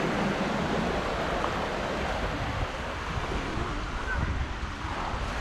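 Sea surf washing onto a sandy beach, a steady wash of noise, with wind buffeting the microphone in a low, fluttering rumble.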